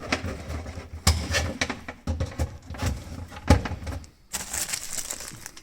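Clicks, knocks and rubbing from hands handling a power cord and plug, with no motor starting: the garbage disposal stays dead.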